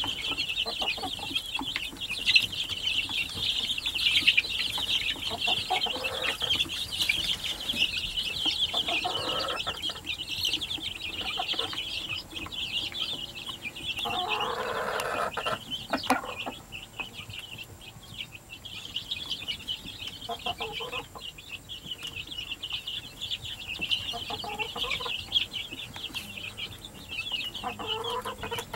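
Domestic hens clucking in short bouts, the longest about halfway through, over a continuous high-pitched chirping.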